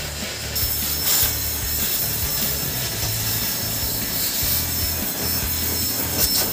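Oxy-fuel gas torch hissing steadily as its flame burns old paint off a motorcycle engine cover, growing louder about half a second in.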